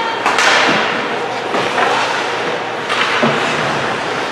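Ice hockey play: skates scraping and carving across the ice, with several sudden louder scrapes or stick-and-puck hits that ring out briefly in the rink.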